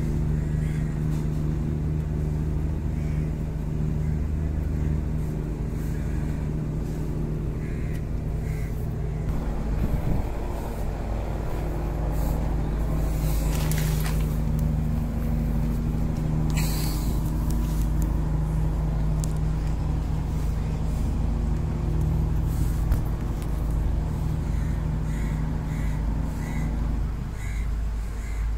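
Houseboat's engine running steadily underway, a low pitched hum heard from on board. Its note shifts about nine seconds in and the hum drops away near the end. Two brief rushing noises come around the middle.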